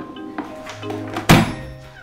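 A single sharp thump from an Airzooka vortex air cannon being fired, a little past the middle, over background music.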